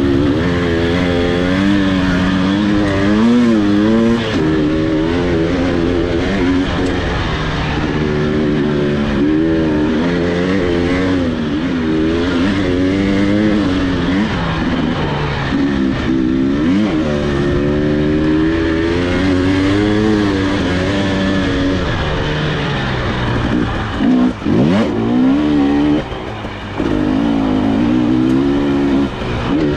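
Husqvarna TE300i two-stroke single-cylinder dirt bike engine being ridden, its revs rising and falling over and over with throttle and gear changes. About 24 seconds in the revs drop sharply, then pick up again.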